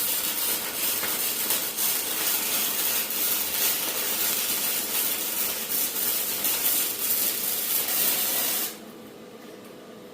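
Welding arc crackling and hissing steadily while a bead is laid on the scrap-iron rack, cutting off suddenly near the end as the arc is broken.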